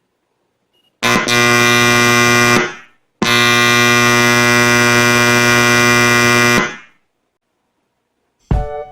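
Small amplifier putting out a loud, steady buzzing hum through its speaker, twice: once for about a second and a half, then for about three and a half seconds. This is the amplifier's fault, hum coming out at full volume.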